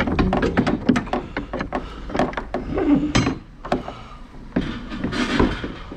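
Rummaging through a dumpster full of bagged produce: a quick, uneven run of knocks and clatter as items are shifted and dropped.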